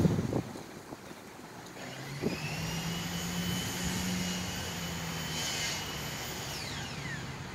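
A vehicle passing by. A steady hum and a high whine build from about two seconds in, and near the end the whine drops sharply in pitch as it goes past.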